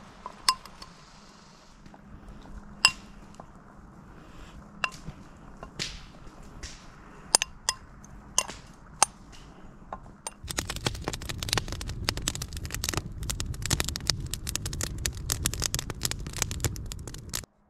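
Scattered sharp clinks, some with a short ring, like utensils or cookware being handled. About ten seconds in, a dense crackling noise starts and then cuts off abruptly near the end.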